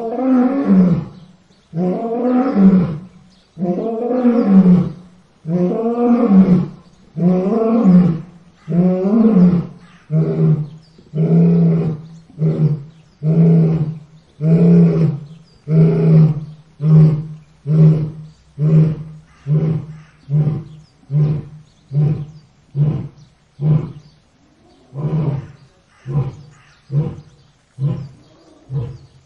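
Lion roaring. Long, full roars come about every two seconds, and after about ten seconds they give way to shorter calls that come roughly once a second and trail off near the end.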